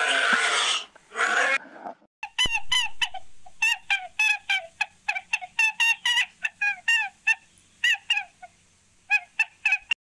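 Opens with a rough, noisy rasp lasting about a second and a half. Then guinea pigs wheeking: a quick run of short, high, squeaky whistled calls, each bending up and then down, several a second, with a brief pause near the end.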